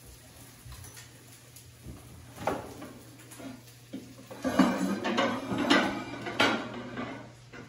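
Dishes and kitchenware being handled: a knock, then from about halfway a quick run of clinks and knocks, over a low steady hum.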